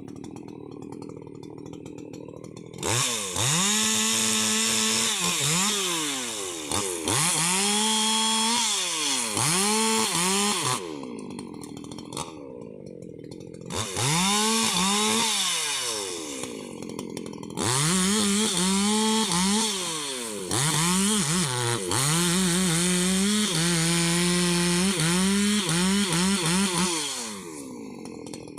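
Husqvarna 288 XP chainsaw, a large two-stroke saw, revved from idle to full throttle in four bursts, the last and longest lasting about nine seconds, and dropping back to idle between them, as when bucking rubberwood.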